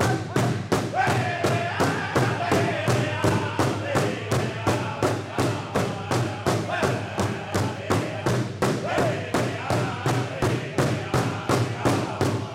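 Powwow drum group: several men striking a large shared hand drum together with drumsticks in a steady, even beat of about three strokes a second, while singing together over the drum.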